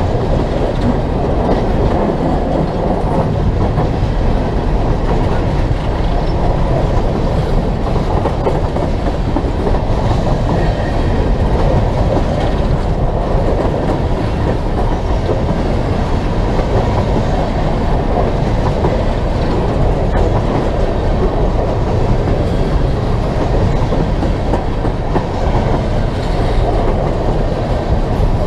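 Coal train's gondola cars rolling past, a steady, unbroken noise of steel wheels running on the rails.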